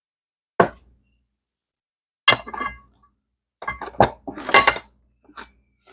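Loose metal parts clinking and clattering as they are handled and set down: a knock about a second in, another a little later, then a busier run of clinks with a short metallic ring, and a faint tap near the end.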